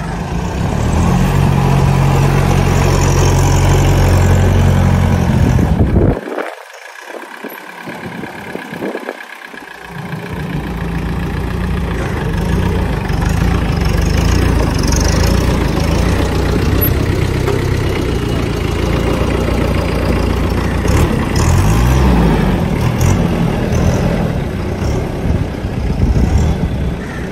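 Farmtrac Atom 30 mini tractor's diesel engine running while the tractor is driven in tight circles. The sound drops away for a few seconds about six seconds in, and the engine note rises and falls with the throttle near the end.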